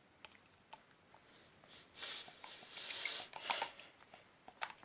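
Plastic bottle of ready-mix paint being squeezed, with a faint breathy hiss of air and paint spluttering out about two seconds in, followed by a few small clicks of the bottle being handled.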